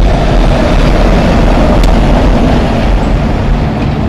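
Heavy truck engine running steadily and loudly, with a faint click about two seconds in.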